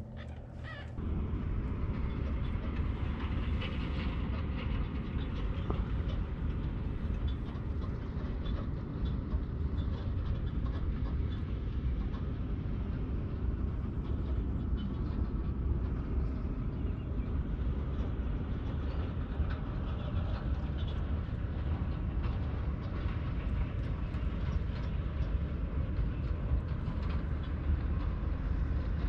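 Steady low rumbling noise that starts abruptly about a second in, with faint scattered ticks above it.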